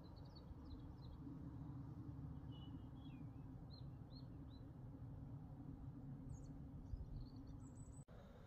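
Faint, scattered chirps of small songbirds, a few short notes at a time, over a steady low background rumble.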